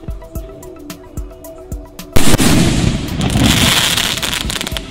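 A Pot o Gold skyshot firework shell bursts with a sudden loud bang about two seconds in, followed by about two seconds of dense crackle as its gold stars spread, with background music throughout.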